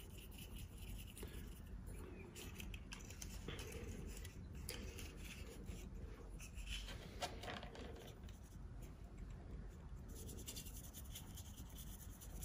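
Paintbrush dabbing and scraping a gritty mix of paint and weathering powder onto a plastic model wagon body: faint, irregular scratchy brushing.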